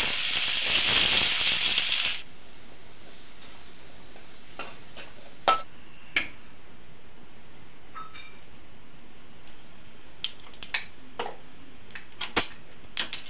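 Potato cubes sizzling in hot oil in a kadhai, a loud even frying hiss that cuts off suddenly about two seconds in. After that a low steady hiss with scattered sharp clicks and pops.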